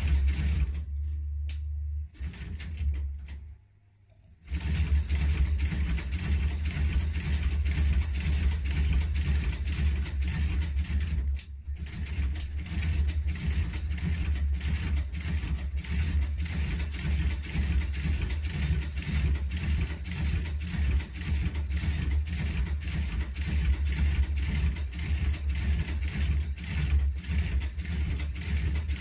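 Electric outsole stitching machine running, its motor humming under a rapid, even clatter of stitches as a new leather sole is stitched onto a shoe. It stops briefly about four seconds in, then runs on steadily.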